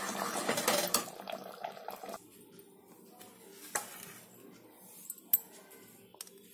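A metal ladle scraping and clinking against an aluminium pressure cooker as thick chickpea curry is stirred for about two seconds. Then come a few sharp clinks of steel dishes, the loudest about five seconds in.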